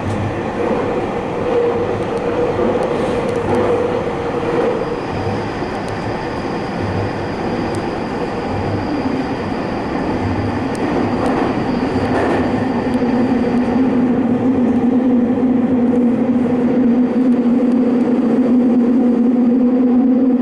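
Tokyo Metro Fukutoshin Line express train running between stations: a steady rolling rumble with a hum that settles to a lower, stronger tone about halfway through, and regular low thuds from the wheels in the first half.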